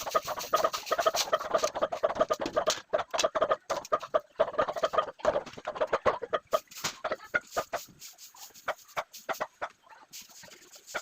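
Chickens clucking over and over, with many short sharp clicks mixed in. The clucking is busiest for the first seven seconds and thins out over the last few.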